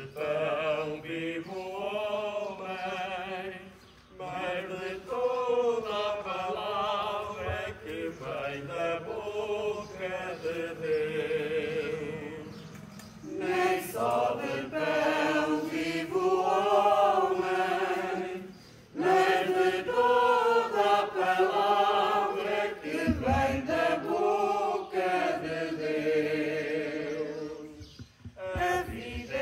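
Small church congregation singing a hymn together, the offertory hymn of a Catholic Mass, in long sung phrases broken by short pauses for breath.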